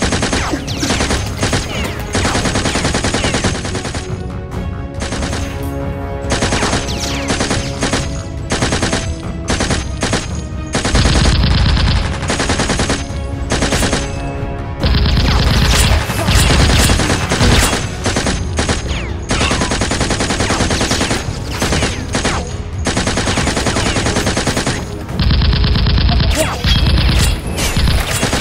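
Rapid automatic gunfire in several long bursts, over a music track that plays throughout.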